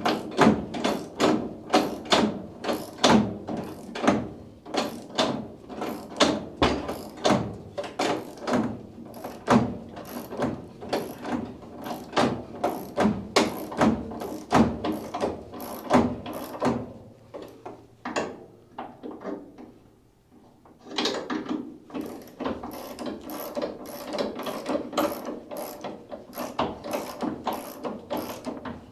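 Hand ratchet clicking steadily, about two to three clicks a second, as a bolt is run into a nut plate in a car's door hinge pocket. The clicks pause for a few seconds past the middle, then resume.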